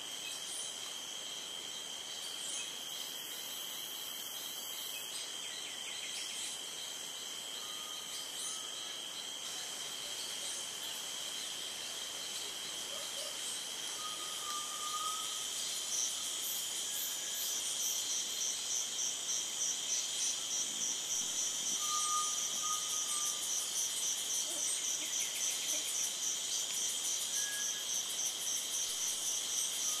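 Rainforest insect chorus: a steady, high, shrill trilling of crickets and other insects. About halfway through, a pulsing insect call joins in at about three pulses a second, and a few brief faint whistles are heard.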